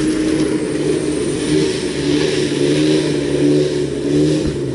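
Pickup truck engine running steadily with a low drone whose pitch wavers slightly as the truck drives through mud.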